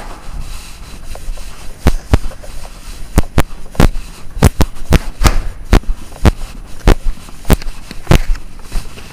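A run of sharp, irregular pops and clicks, about two a second, over a low rumble.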